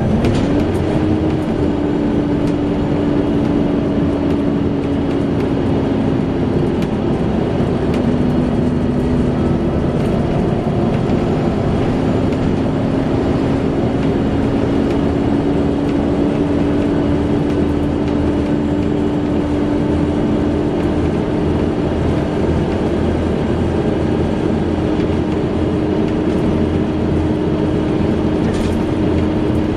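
Volvo B7TL bus's cooling fan giving its hoover-like whine over the running engine. The whine steps up in pitch right at the start, then holds steady with a slow drift.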